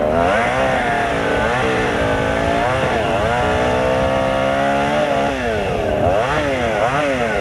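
Chainsaw engine running, its pitch rising and falling repeatedly as the throttle is worked, held fairly steady for a couple of seconds mid-way.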